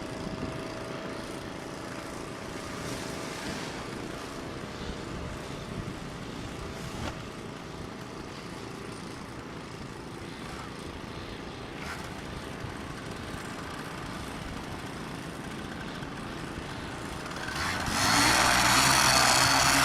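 Paramotor engine and propeller running steadily, then opened up sharply near the end, much louder.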